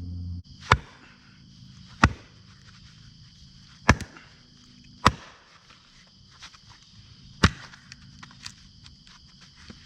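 An axe chopping dense firewood: five sharp strikes a second or two apart, with smaller knocks and taps between them.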